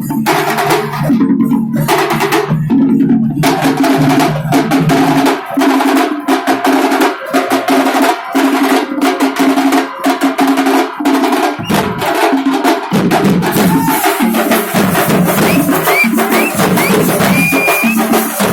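Festival drum ensemble playing a fast, driving kuthu beat, dense drum strokes over a steady held tone. A few short rising whistle notes sound near the end.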